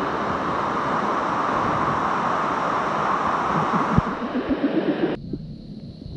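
Steady rushing of a waterfall, a loud even hiss of falling water that cuts off suddenly about five seconds in. A single knock comes about four seconds in.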